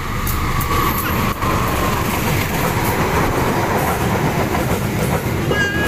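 A diesel locomotive hauling a passenger train passes close by. The locomotive goes past in the first second or so and the coaches roll by after it, a loud, steady rumble of wheels on the rails.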